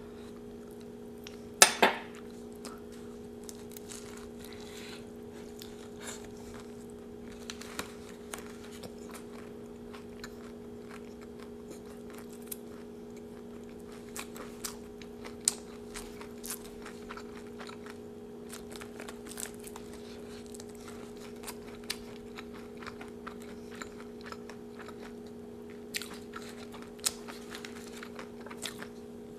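A loud crunchy bite into a taco about two seconds in, then close-miked chewing with small crunches and mouth clicks throughout. A steady low hum runs underneath.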